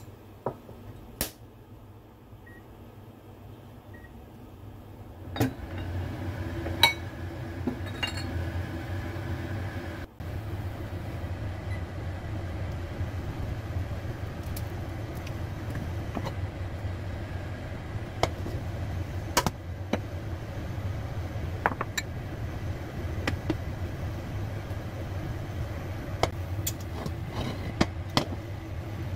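A spoon clinks a couple of times against a small glass bowl. From about five seconds in, a kitchen appliance runs with a steady low hum while the wok heats on the electric hob, with scattered light clicks and taps over it.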